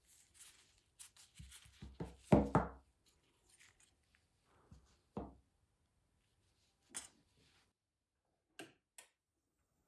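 Scattered clicks and knocks of hand tools worked against a small turned wooden part: diagonal cutters and a thin metal blade on the wooden body of an antique hand-crank massager. The loudest knocks come about two to two and a half seconds in, with two sharp clicks near the end.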